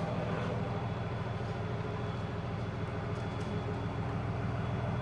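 Vehicle engine idling: a steady low hum with no change.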